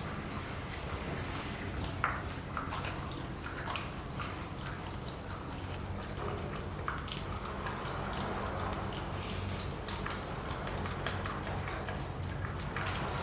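Pomsky puppy licking and chewing a frozen stuffed Kong Extreme rubber toy: irregular wet smacking and clicking, over a steady low hum.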